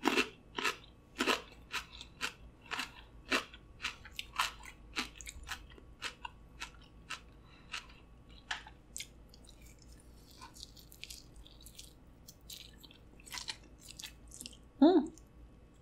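Close-miked chewing and crunching of Hot Cheeto-coated food, a run of sharp crunches about two a second that thin out later. A short hum near the end.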